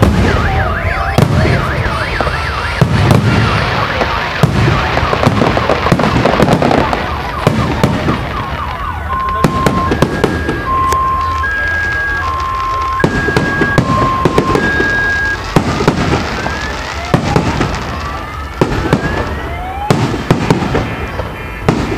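Fireworks going off: repeated bangs and crackling bursts throughout. In the middle a car alarm sounds a steady two-tone alternating warble for several seconds. Near the end several rising whistles join in.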